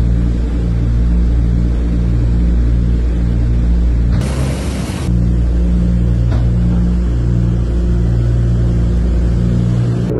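Aircraft engines droning steadily with a pulsing beat about twice a second. A short burst of hiss comes about four seconds in.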